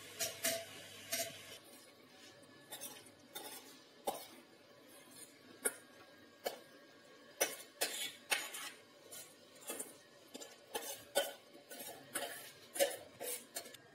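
Irregular clinks and taps of a spoon and utensils against a stainless steel bowl and a mixer-grinder jar as soaked nuts and seeds are scooped and tipped into the jar.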